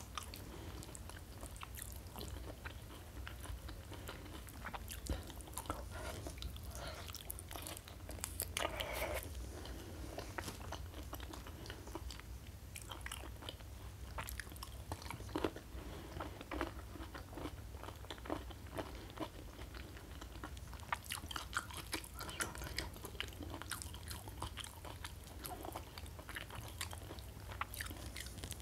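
Close-miked mouth sounds of a person eating spicy fried eggplant with sambal by hand: chewing and biting, with many small irregular clicks and crunches.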